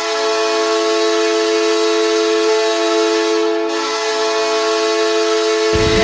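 Seattle Kraken preseason goal horn sounding in a loud, steady blast of several tones at once. Music with a heavy low beat comes in under it near the end.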